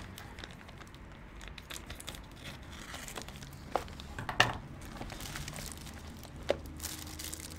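Plastic packaging crinkling and rustling as it is handled, with three sharp clicks or taps in the second half, the loudest about four and a half seconds in.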